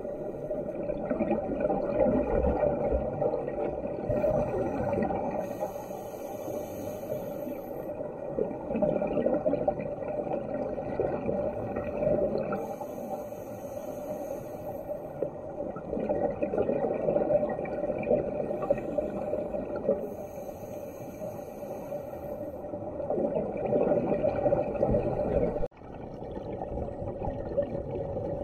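Muffled underwater noise picked up by a camera inside its waterproof housing. It swells and fades every several seconds and breaks off abruptly once, about three seconds before the end.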